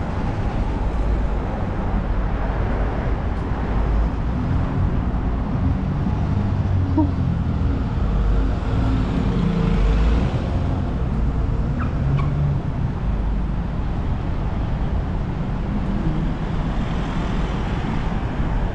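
Road traffic on a busy city street: cars and buses passing, a steady low rumble.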